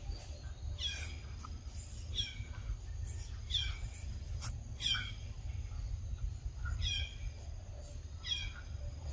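A bird repeating a short, high call that falls in pitch, about once every second or so, over a steady low rumble.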